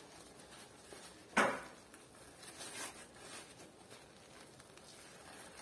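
Paper napkin rustling in the hands as a hot baked polvilho azedo roll is squeezed and broken open, with one sharp, louder noise about a second and a half in and a few softer rustles after it.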